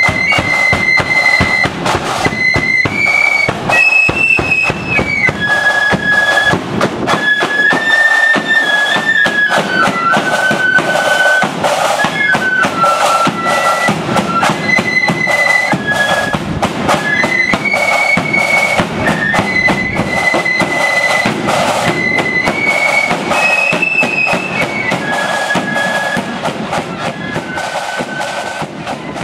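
Marching flute band playing a tune on flutes in unison over drums, with a steady beat. The sound fades over the last few seconds as the band moves away.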